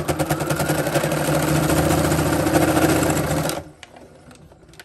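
Computerized sewing machine running a straight stitch at speed through several layers of fabric, a fast steady stitching rhythm, then stopping about three and a half seconds in.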